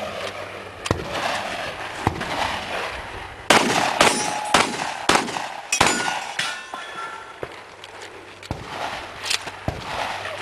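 A string of about a dozen gunshots at uneven spacing, with a quick cluster near the middle. After several of the shots, steel targets ring from the hits.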